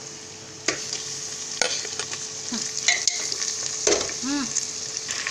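Raw mutton pieces dropped into hot oil and fried onions in an aluminium pressure cooker, sizzling loudly as they land. Sharp knocks come every second or so as the meat and ladle hit the pot, and the sizzle grows louder after the first piece, about a second in.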